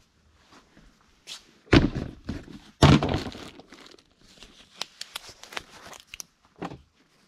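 Two heavy thunks about a second apart, each trailing off in a short rattle, then lighter clicks and knocks of things being handled on a work surface.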